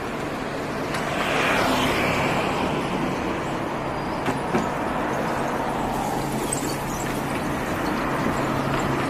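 City street traffic: cars driving past at close range over a steady road hum, with one passing vehicle swelling loudest about a second and a half in.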